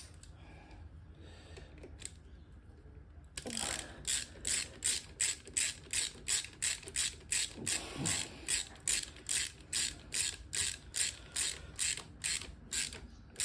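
Hand ratchet wrench worked in quick repeated strokes, each stroke a short burst of pawl clicks, about two and a half strokes a second; it starts about three seconds in and stops near the end.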